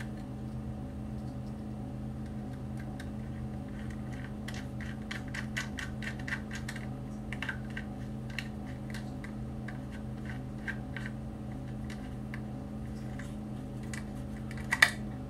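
Small screwdriver driving tiny mounting screws into a laptop hard drive's metal bracket: a run of light, irregular metallic clicks and ticks, with one sharper click near the end. A steady low hum underneath.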